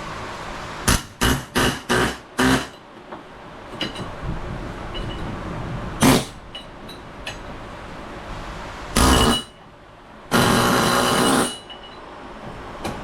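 Hammer strikes on metal, working a stuck part loose from a Polaris RZR 800S rear wheel hub. There are five quick blows in the first few seconds and another about six seconds in, then two longer, louder bursts of noise of about a second each near the end.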